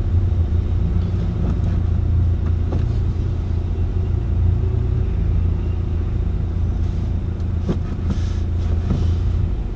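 Car driving along, heard from inside the cabin: a steady low engine and road rumble, with a few faint ticks near the end.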